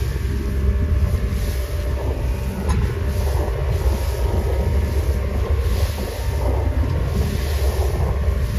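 A small boat's engine running steadily as it moves across choppy water, with wind buffeting the microphone.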